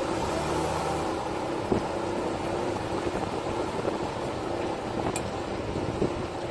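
A vehicle engine running steadily under a noisy background hum, with one short knock about a second and a half in.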